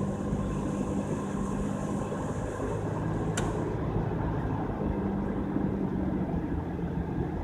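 Vehicle driving down the road, heard from inside the cab: steady engine and tyre noise with a low hum, and none of the wheel-bearing roar now that a new hub/bearing assembly is in. A single sharp click about three and a half seconds in.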